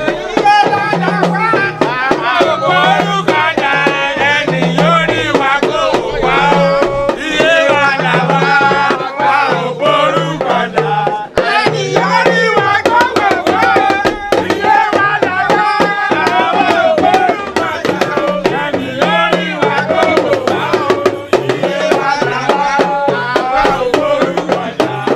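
A Yoruba-language song: voices singing over hand percussion and a bass line that repeats about once a second.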